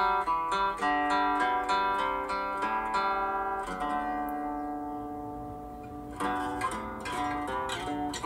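Background music: acoustic guitar picking quick single notes, then letting a note ring and fade for about two seconds before the picking starts again.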